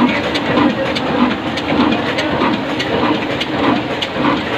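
Slow-running 26 BHP stationary diesel oil engine, rated 275 RPM, running steadily: a regular low thump about twice a second, with sharp clicks and clatter from its valve gear between the beats.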